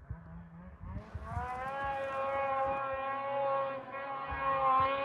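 A snowmobile engine held at high revs while the sled climbs a steep hill: a steady, high whine with many overtones that comes in about a second in and slowly grows louder.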